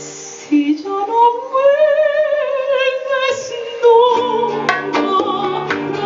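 Soprano singing one long held note with vibrato, rising slightly in pitch after she comes in about half a second in. Acoustic guitar and percussion rejoin with sharp plucked and struck notes from about four seconds in.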